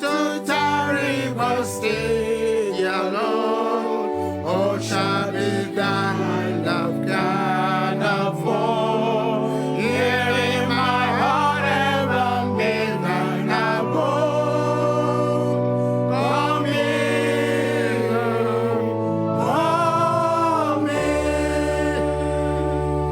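Gospel music: voices singing over steady held chords with a bass line that changes every few seconds.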